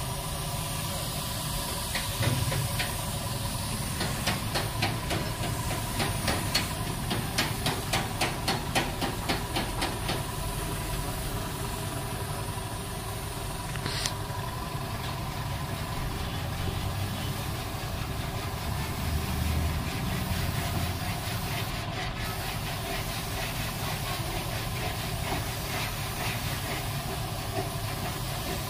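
Steady hiss of compressed air from a gravity-feed paint spray gun over a machine running steadily. Between about 4 and 10 seconds in comes a run of regular ticks, about three a second.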